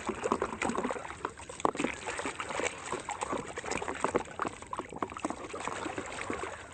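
Water pouring and trickling over a muddy plastic toy as it is washed, with irregular small splashes and clicks of the toy being handled.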